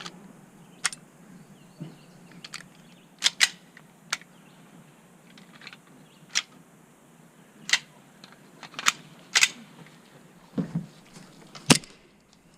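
Airsoft guns firing single shots, about nine sharp cracks spaced irregularly, with the loudest near the end.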